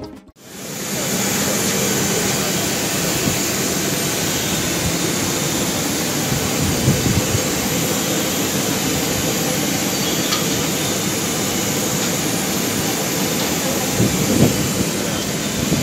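Steady, unbroken rushing noise of a jet airliner on the apron, with a couple of faint knocks.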